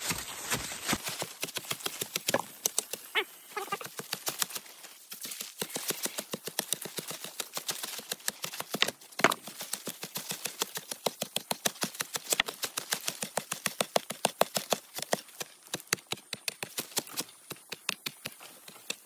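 A hand digging tool chopping repeatedly into the earth and roots around bamboo shoots. It makes a fast run of sharp strikes, several a second, broken by short pauses.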